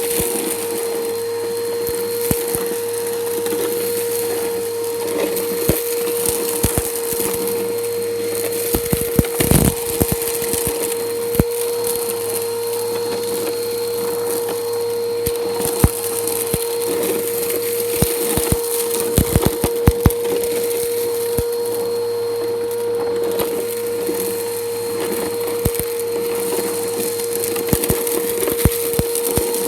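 2015 Bissell Powerforce Helix upright vacuum running on concrete with a steady motor whine, and frequent crunchy cracks and clicks as grit and debris are sucked up.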